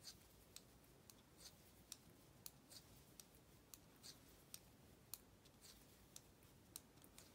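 Faint, light clicks about twice a second from 7 mm circular knitting needles as knit stitches are worked.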